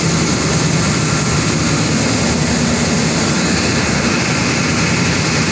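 Steady, loud drone of running industrial plant machinery: an even low hum under a wide hiss.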